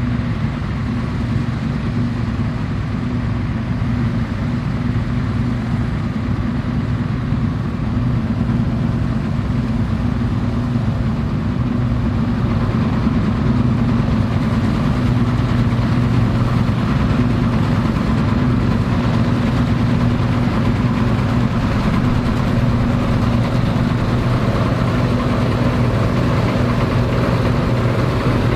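Vintage Dronningborg D2600 combine harvester running steadily while harvesting barley, its engine a steady low drone mixed with the noise of the working machinery. It grows a little louder about halfway through.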